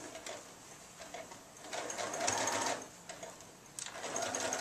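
Sewing machine stitching in two short spurts with a pause between, as fabric is fed through to gather it into pleats.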